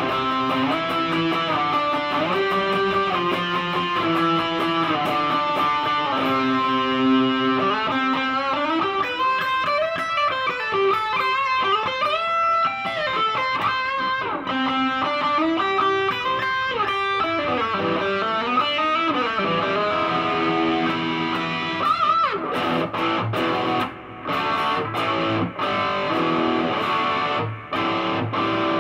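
Electric guitar played through an Artec G10x 10-watt practice amp with its distortion on: sustained lead notes with string bends, then short choppy notes broken by brief stops over the last few seconds.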